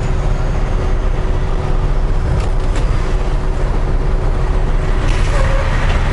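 Volvo VNL860 semi truck's diesel engine idling steadily.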